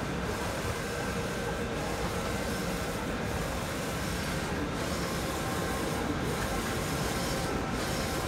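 Stormjet SJ-3180TS wide-format inkjet printer printing: the steady running noise of its printhead carriage shuttling across the paper, with a brief drop in the hiss about every one and a half seconds.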